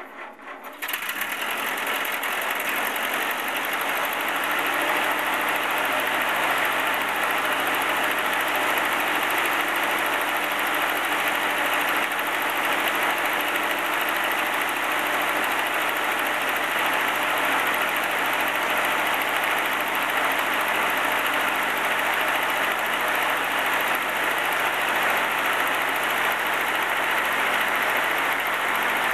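Ferguson TEA20 tractor's four-cylinder petrol engine running steadily at idle after a cold start in frost, warming up. It comes in about a second in and settles to an even level within a few seconds.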